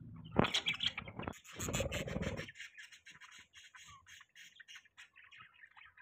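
Pet budgerigars chattering and warbling in a rapid run of high, twittering notes. A sharp click about half a second in is the loudest sound, and there is a brief low rumbling noise around two seconds.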